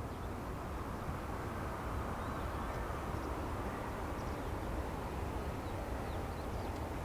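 Airbus A320 airliner's jet engines, a steady rushing noise growing gradually louder as it approaches to land. A few faint bird chirps sound over it.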